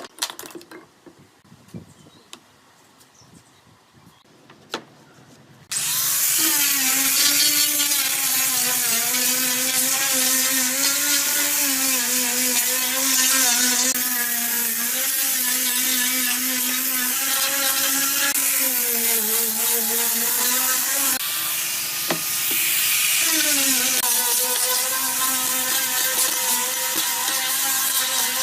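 A few faint taps of handling, then an electric power tool starts suddenly about six seconds in and runs on wood, its motor pitch sagging and recovering as it cuts. It slows about two-thirds of the way through, then spins back up and runs on.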